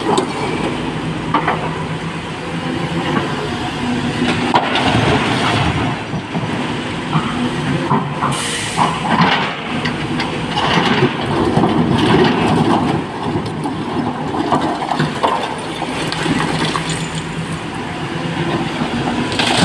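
SANY SY225 hydraulic excavator's diesel engine running under load while its steel bucket digs into broken quarry rock, stones clattering and grinding against the bucket and each other. A short hiss comes about eight seconds in.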